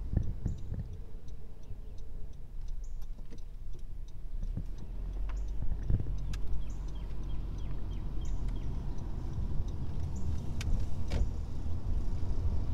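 A Honda's turn-signal indicator clicking about twice a second inside the cabin, over the car's low engine and road rumble, which grows louder about halfway through.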